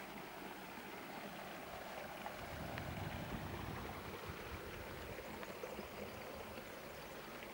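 Steady rushing outdoor noise with a few faint clicks and knocks scattered through it.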